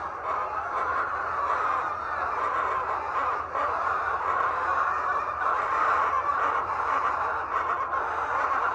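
A large flock of laying hens clucking and calling all at once, a continuous dense chatter with no single bird standing out.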